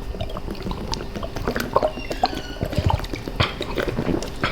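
People gulping and swallowing water from bottles during a speed-drinking race, with wet liquid sounds and many small irregular clicks.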